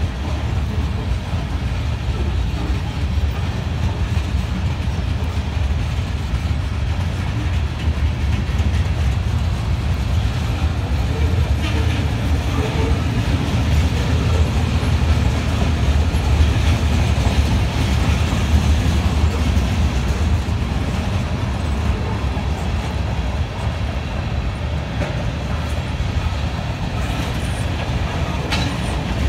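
Freight train cars rolling past, covered hoppers then tank cars: steel wheels on the rails making a steady rolling rumble, strongest in the deep bass.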